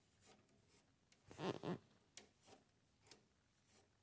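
Near silence broken by a brief double rub about a second and a half in, then a couple of faint clicks: the Cub Cadet 1772's hydrostatic control linkage and turnbuckle being pulled by hand to check them for play.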